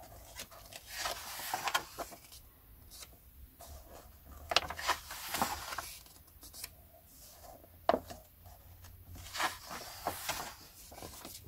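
Paper pages of the collection's magazine being turned and handled: soft rustling and sliding, with a few light clicks, two of them sharper about four and a half and eight seconds in.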